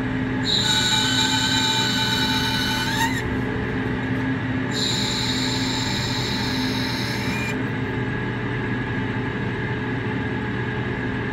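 CNC turret lathe cutting a thread on a metal part. The machine runs with a steady hum, and twice, for about three seconds each, the threading tool gives a high-pitched squeal as it takes a cutting pass, the first squeal rising in pitch just before it stops.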